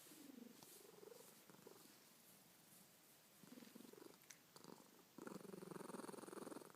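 Soft snoring: a faint, low, finely pulsed rattle that comes in several short stretches, then a longer and louder one over the last second and a half.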